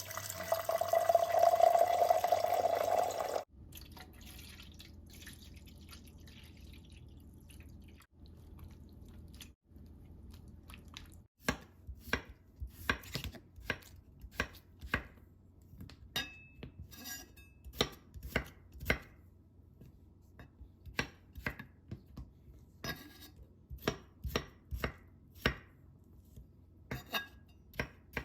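Running water for about three seconds at the start, then after a quieter stretch a kitchen knife chopping on a cutting board in uneven strokes, one or two a second.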